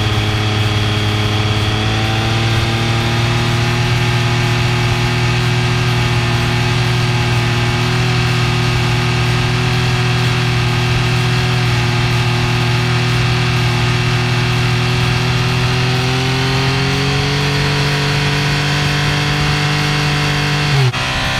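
Yamaha MT-09's three-cylinder engine and exhaust revving at a steady, held speed on a stationary noise test, then stepping up to a higher held speed about three-quarters through. Just before the end the revs drop suddenly and climb again.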